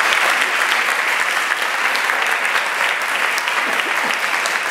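Audience applauding: dense, steady clapping from many hands, with no break.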